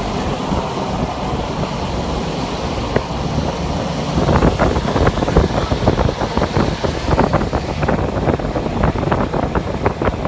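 Toyota FJ Cruiser driving, a steady noise of road and engine. From about four seconds in, a dense, irregular run of crackles and knocks joins it.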